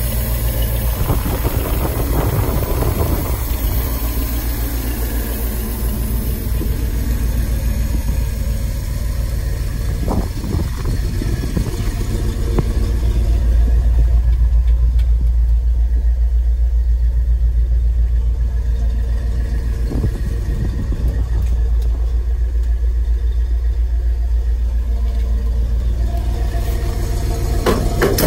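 Built-up 460 big-block V8 of a 1975 Ford F-250 idling steadily, a continuous low rumble that grows louder about halfway through.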